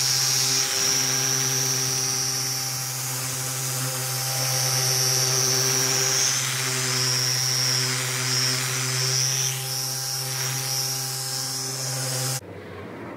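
Handheld machine car polisher running with its pad pressed on the paint during a stage-one polish: a steady motor hum with a high whine. It cuts off suddenly near the end.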